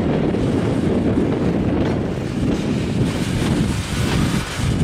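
Freight train of grain hopper cars rolling past, with a steady low rumble of steel wheels on the rails and wind buffeting the microphone.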